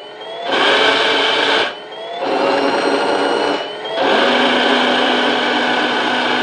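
The RC tank's newly fitted red gear motors and gearbox running under throttle in three bursts with short pauses between. Each burst rises in pitch as the motors spin up, then holds a steady whir.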